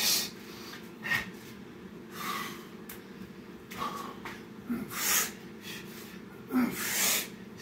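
A man breathing hard while exercising: about six loud, hissing breaths, roughly one every second, over a steady low hum.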